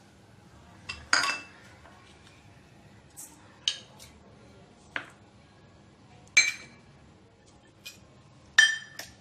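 Metal utensils clinking against a stainless steel mixing bowl as ingredients are tipped in: about six or seven sharp, ringing knocks spaced a second or more apart, the loudest about six and a half seconds in and again near the end.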